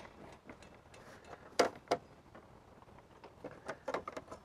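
Table saw throat plate being pressed into place around the blade: two sharp clacks about a second and a half in, then a run of lighter clicks and taps near the end.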